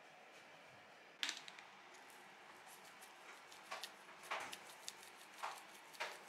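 A series of light, irregular clicks and taps in a small room, beginning about a second in, the sharpest first.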